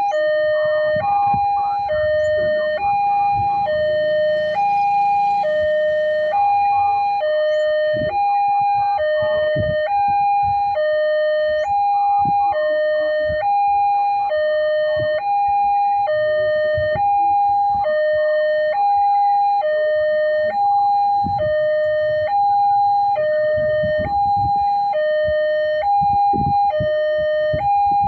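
Railway level-crossing warning alarm sounding from the loudspeaker on the signal post: an electronic two-tone signal alternating high and low, each tone about half a second long, repeating steadily. It warns that a train is approaching and the barrier is down.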